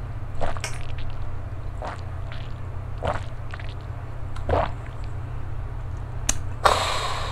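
A man drinking a shot of soju: several short swallowing and mouth sounds about a second apart over a low steady hum. Near the end comes a sharp click and then a breathy exhale.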